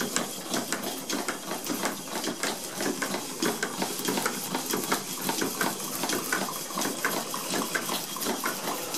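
Four Stuart model steam engines running together on steam from a Stuart 504 boiler: a steady watery hiss with many rapid, irregular clicks from the running engines.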